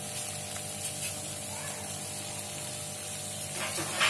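Soy-sauce-glazed chicken drumsticks sizzling steadily in a nonstick frying pan, with a brief knock near the end.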